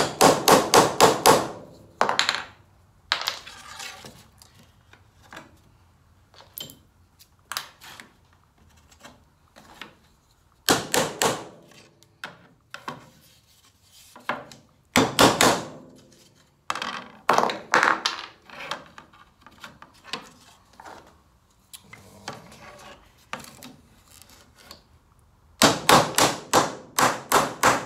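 A small hammer driving nails through a plywood ring in bursts of rapid taps, several taps a second, with pauses between bursts. The loudest bursts come at the start and near the end.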